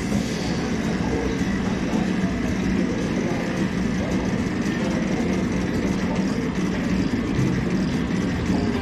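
Steady low rumble and hum of airport ambience, with a faint steady tone above it.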